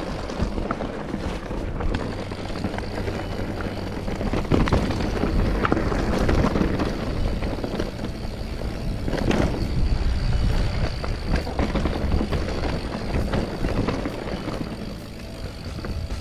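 Mountain bike riding a dirt forest singletrack: a steady rough rumble of the tyres on the trail with many small clicks and knocks of the bike rattling over bumps.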